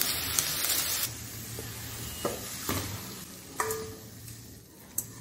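Okra frying in oil in a stainless-steel kadhai, sizzling while a metal spoon stirs it. About a second in the sizzle falls away, and a few clinks and scrapes of the spoon on the steel pan follow as the okra is scraped out onto a plate, one clink ringing briefly.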